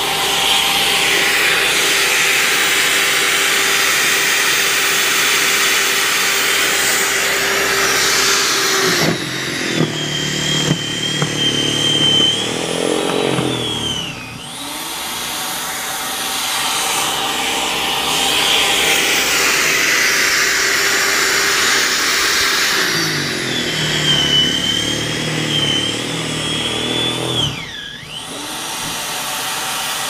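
Electric snowblower running steadily, its motor note dropping and recovering twice, near the middle and near the end.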